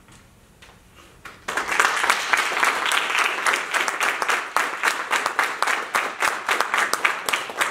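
Audience applause, breaking out suddenly about a second and a half in: many hands clapping at once.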